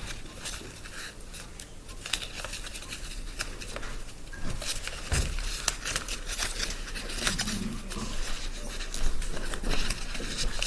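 A sheet of paper being folded and creased by hand into a paper airplane's reverse fold: irregular, crisp crinkles and rustles.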